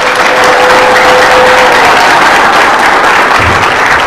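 Audience applauding, many hands clapping steadily, with one long steady tone held over the clapping for the first two seconds or so.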